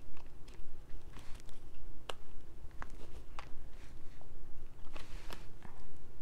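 Irregular light clicks and rustles of hands handling a cash-envelope binder and its envelopes, a few sharper snaps among them, over a low steady hum.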